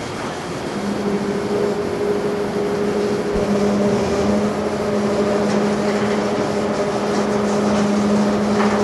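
A tanker truck's engine running steadily at constant speed, a steady hum that comes in about a second in, over a constant noisy rush.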